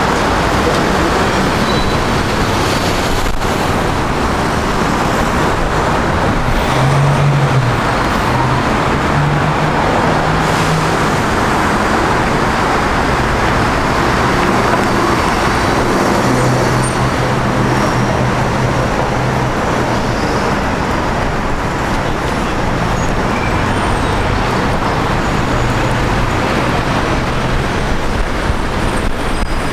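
Road traffic on a city street: a steady rush of passing cars, with a low engine hum from a heavier vehicle rising and fading in the middle stretch.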